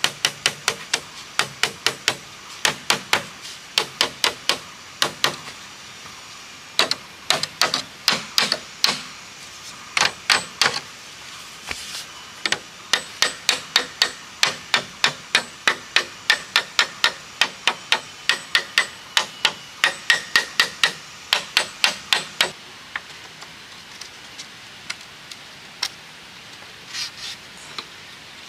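Machete knocking on bamboo poles in quick runs of sharp strikes, about three or four a second, with short pauses between runs. The strikes stop a few seconds before the end, leaving only a few light taps.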